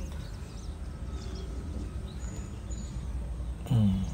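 Morning outdoor ambience: faint bird chirps over a steady low rumble. A brief voice sound near the end.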